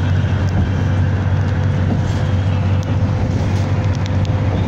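Steady low drone of a moving car heard from inside the cabin: engine and tyre noise on the road. A faint thin steady hum joins in about a second and a half in.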